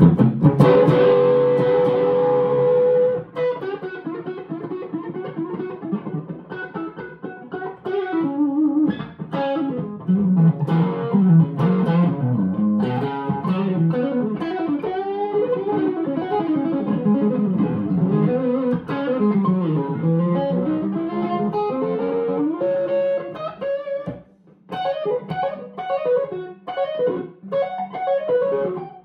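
1961 Gibson SG Special electric guitar played amplified with its volume on 10, on one of its P-90 pickups. A loud chord rings for about three seconds, then comes a long stream of single-note lead lines, a brief break about 24 seconds in, then faster picked notes.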